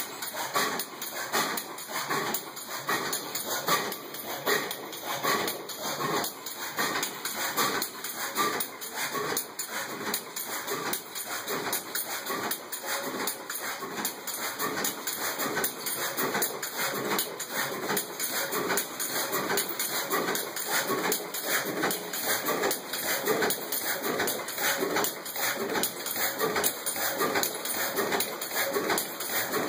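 Old Superior stationary gas engine running at slow, steady speed, its firing strokes beating evenly at about two a second as it drives the pumping power.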